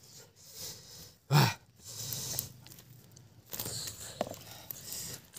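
Jackfruit being eaten: irregular chewing and mouth sounds with breaths. A short, loud noise comes about a second and a half in.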